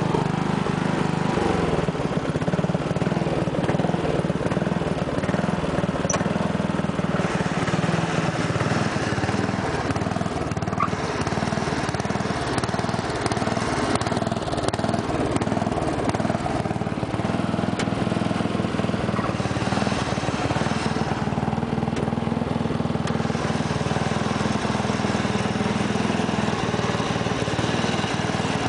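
1986 MTD Coast to Coast lawn tractor's 11 hp Briggs & Stratton engine running steadily after a cold start.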